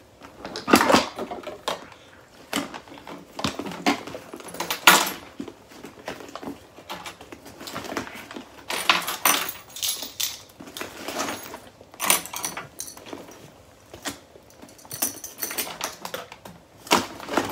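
Items being packed by hand into a Louis Vuitton Neverfull tote bag: irregular rustling, clicks and knocks as things are pushed in and shifted around to make them fit.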